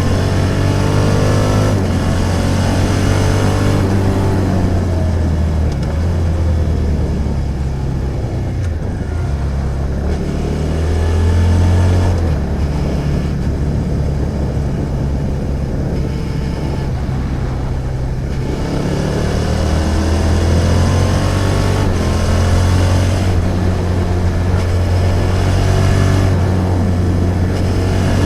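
Suzuki SV650's V-twin engine running under way, its pitch rising and falling several times as the bike accelerates and eases off through the gears.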